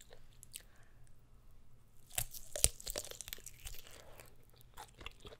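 Close-miked biting into a juicy kielbasa sausage: a sharp bite through the casing about two seconds in, then wet chewing.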